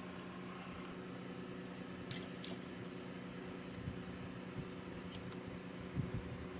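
Light clicks and small metallic taps of phone parts being handled while the screen is connected to the board, with a pair of sharp ticks about two seconds in. A steady low hum runs underneath.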